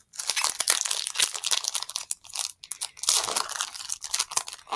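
Foil booster-pack wrapper crinkling and tearing as it is ripped open by hand, an irregular run of crackles and rustles.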